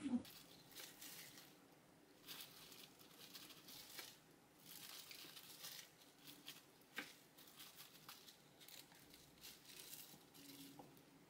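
Faint rustling and crinkling of disposable plastic gloves, with a few light clicks, as strips of bulgogi are laid onto rice and nori. A brief thump sounds at the very start.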